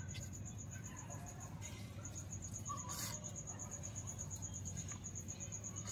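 A cricket chirping steadily in a fast, even run of high pulses, over a low hum. Faint dribbles of water from a squeeze bottle land on the potting mix in the seedling cups.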